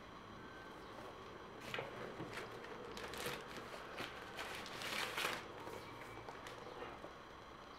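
Soft rustling and handling noises, like paper or packaging being moved, in a few short bursts, with a longer rustle about five seconds in.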